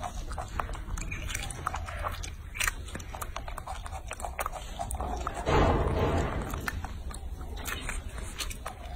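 Baby macaque eating a peeled orange, with wet, clicky biting and chewing sounds. About five and a half seconds in there is a louder rush of noise lasting under a second.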